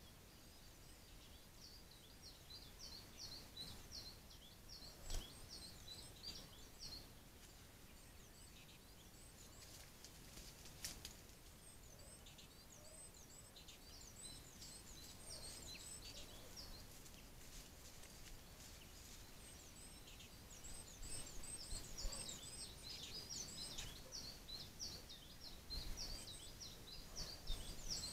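Faint songbirds chirping: quick high phrases repeated over and over, busiest at the start and toward the end, with a few sharp knocks standing out from the song.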